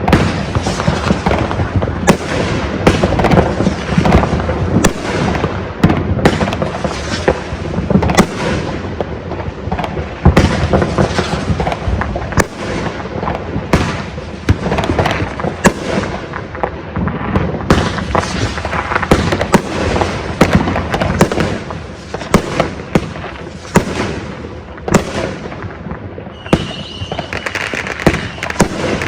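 A 25-shot consumer firework cake firing in rapid succession: a dense run of sharp shots and bursts over continuous crackling. A steady high whistle joins in near the end.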